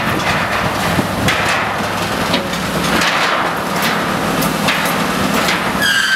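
Menck M154 cable excavator working as a wrecking-ball crane: its engine runs steadily under a noisy clatter of demolition, with several sharp knocks and crashes of rubble. A high-pitched squeal sets in near the end.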